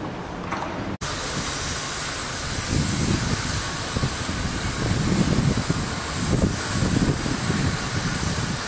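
Wind buffeting an outdoor microphone: a steady hiss with irregular, gusty low rumbling, starting abruptly after a brief dropout about a second in.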